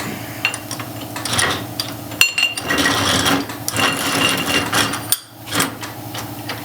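Metal tools and parts clanking and clinking, with sharp metallic knocks, a couple of which ring briefly.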